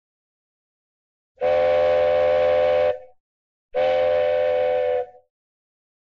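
Cartoon train whistle sound effect: two toots of steady pitch with several tones sounding together like a chord, each about a second and a half long, the second following the first after a gap of nearly a second.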